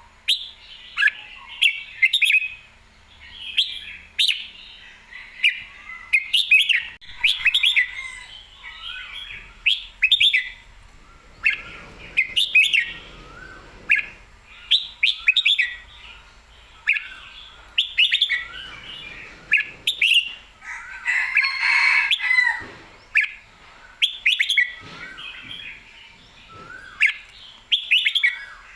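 Red-whiskered bulbul singing: short, bright, warbling whistled phrases repeated one after another, about one every second, with a few sharp clicks in between.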